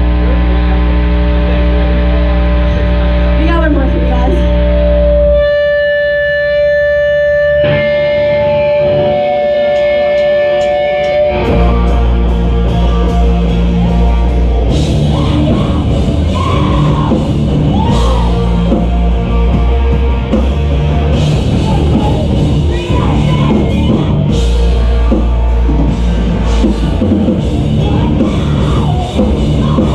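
Live rock band playing loud, with distorted electric guitars, bass and drum kit. Held chords give way about five seconds in to a single sustained note. The full band with drums crashes back in around the middle and keeps driving to the end.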